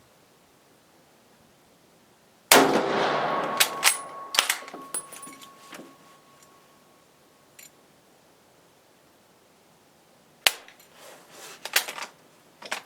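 A Brazilian M1908/34 Mauser bolt-action rifle in .30-06 fires one shot about two and a half seconds in, and the report rings out briefly. A few metallic clicks of the bolt being worked follow, and a cluster of sharp clicks comes near the end.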